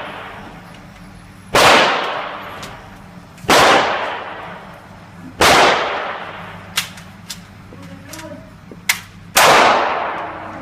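Smith & Wesson M&P AR-15 rifle fired four times, roughly every two seconds, each shot a loud crack that dies away slowly in an echo. Between the third and fourth shots come a few fainter, shorter cracks.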